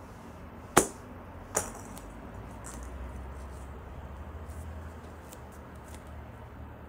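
A wedge's clubface striking a golf ball off an artificial-turf hitting mat: one sharp click under a second in, then a quieter knock less than a second later, followed by a few faint ticks.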